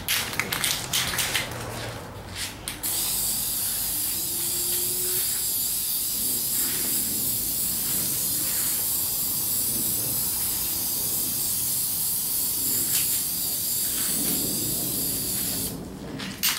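Aerosol spray can of automotive vinyl and fabric dye spraying a thin coat onto plastic blaster parts, a steady high hiss held for about thirteen seconds that cuts off near the end. It is preceded by a couple of seconds of rapid clicking.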